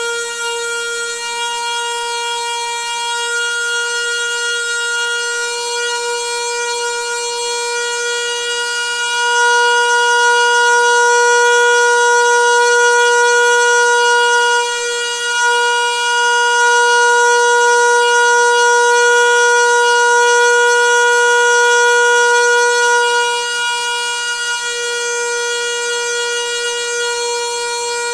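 Noisy water pipe giving off a steady, high humming tone, the sound of water flowing through plumbing that sings. It swells louder about nine seconds in, dips briefly, swells again, and eases back near the end.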